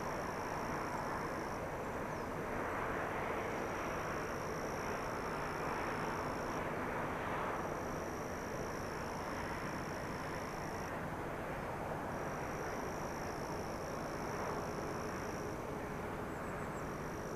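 Distant JR Freight DF200 diesel-electric locomotive hauling a long freight train up the Fujishiro line grade: a steady engine rumble carrying across the valley. A high, thin insect trill comes and goes in stretches of a few seconds.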